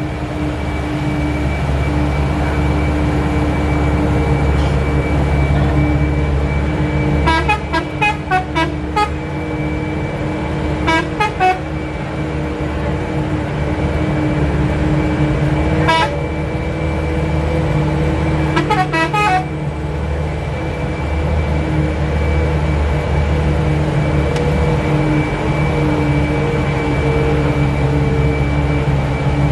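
Bus engine of a Mitsubishi Canter running steadily, heard from inside the cabin, with a multi-tone telolet horn sounding short runs of toots: a cluster about 7 seconds in, another about 11 seconds in, a single toot about 16 seconds in and a last cluster about 19 seconds in.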